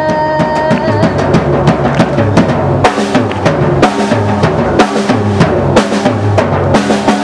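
Live rock band playing: a sung note held for about the first second, then an instrumental stretch of drum kit with a steady beat over electric bass and electric guitar.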